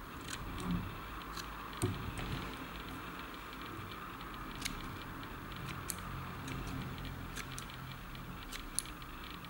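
Faint scattered clicks and taps of fingers handling a streamer fly held in a fly-tying vise as it is turned over in the jaws, over a low steady background hum.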